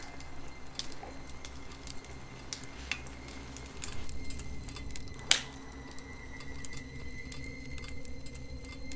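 Fire burning in a fire pit, crackling with scattered sharp pops, one louder pop about five seconds in, over a low steady rumble.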